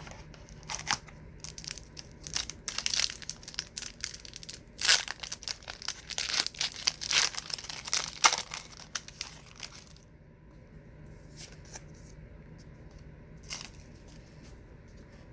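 Trading-card pack wrapper being crinkled and torn open: about ten seconds of crackling rustles, then quieter handling with a few light clicks.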